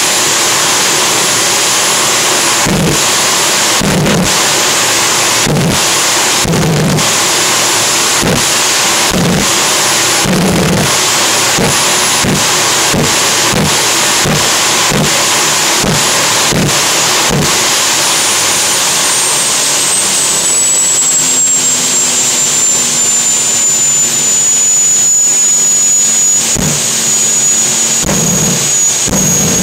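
Gas turbine engine of the Squirt 2 jet boat running loud and steady, a rushing noise with a high thin whine that drops in pitch about two-thirds of the way through.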